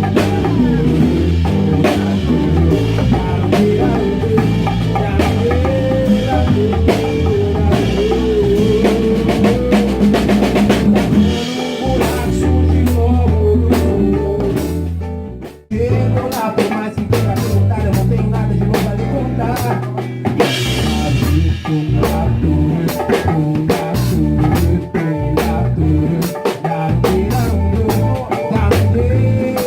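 Live band playing an instrumental passage with drum kit, percussion, bass and guitar, a melodic line wavering over the beat. About halfway the band stops together for a moment and then comes straight back in.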